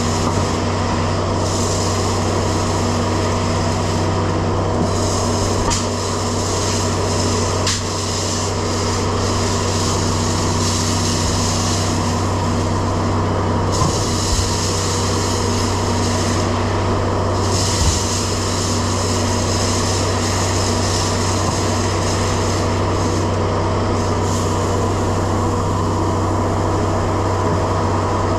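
Grain vac running steadily, a loud, constant hum of the machine with the rush of air and corn being sucked through it, with a couple of brief knocks along the way.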